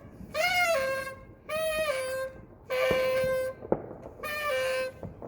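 A horn tooting four times, each toot under a second long and stepping down in pitch near its end, with a few sharp firework cracks between the toots.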